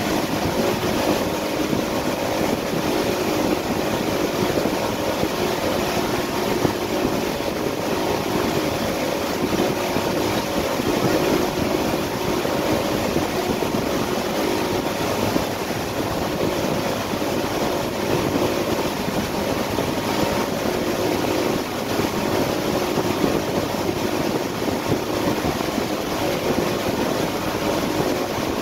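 A 2016 Yamaha AR240 jet boat running steadily at wakesurf speed, a constant engine drone with a faint steady whine, under the rush of churning wake water and wind.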